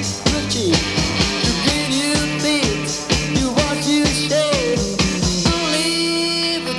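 1960s beat-band rock song played from a mono vinyl transfer: a steady drumbeat with bass and electric guitars. About five and a half seconds in, the beat stops for a held chord.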